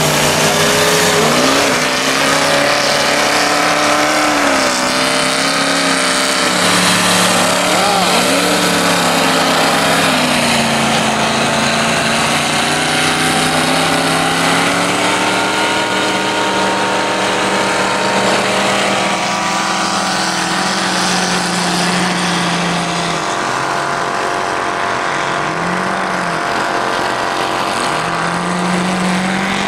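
Several off-road race buggies and trucks with their engines revving hard, the pitch climbing and dropping again and again as they struggle through deep snow off the start line.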